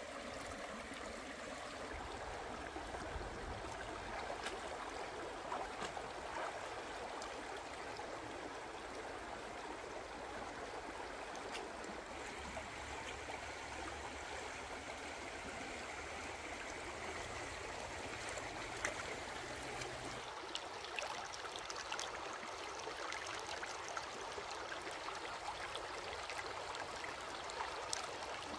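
Steady flowing water, with a few faint clicks scattered through it.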